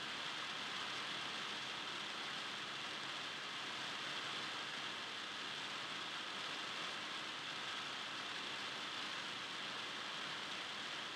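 A steady, even hiss with no other sounds: no voices, whistles or ball bounces are heard.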